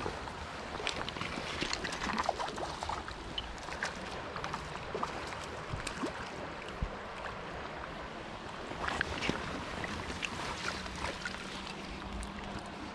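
Trout stream water running steadily, with scattered small splashes and clicks throughout and light wind on the microphone.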